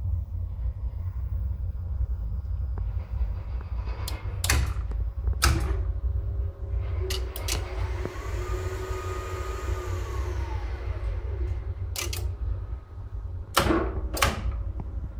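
Relays and contactors in a lift control cabinet click in sharply several times. Then the frequency-inverter-driven lift motor whines, rising in pitch, holding steady for about two seconds and falling away again as the lift accelerates, travels and stops. More contactor clicks follow near the end, over a steady low hum.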